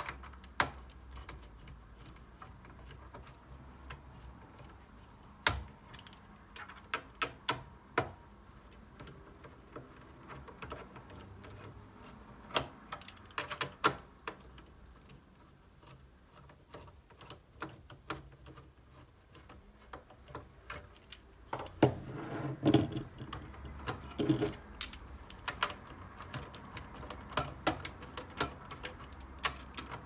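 Screwdriver working the four screws of a CPU heatsink in a small-form-factor desktop's metal case: scattered sharp clicks and metal taps, with a louder, busier stretch of knocking and rattling a little past two-thirds of the way through.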